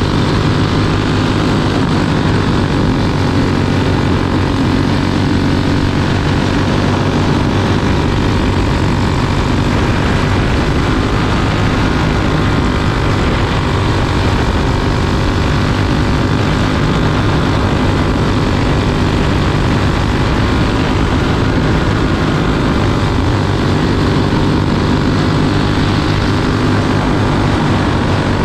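Single-cylinder flathead racing kart engine running hard under load, heard from onboard the kart, its pitch falling and rising a little through the corners.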